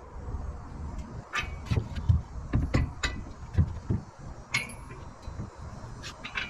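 Irregular metallic clinks and knocks with low thumps: metal rack hardware being handled and fitted on a pickup truck's bed rail.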